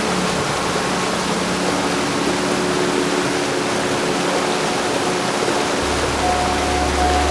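Heavy rain falling steadily, an even hiss with no thunderclap. A low steady hum comes in near the end.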